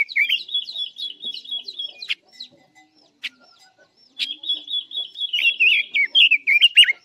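Caged red-billed leiothrix (Pekin robin) singing a fast, warbling song, two long phrases with a pause of about two seconds between them that holds a few short, sharp clicks.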